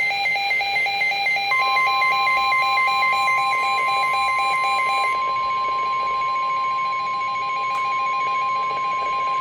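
NOAA Weather Radio warning alarm tone: a single steady 1050 Hz tone that starts about a second and a half in and holds, sounding ahead of a severe thunderstorm warning. Underneath it, a fast-pulsing electronic beeping alarm runs, louder until about halfway through.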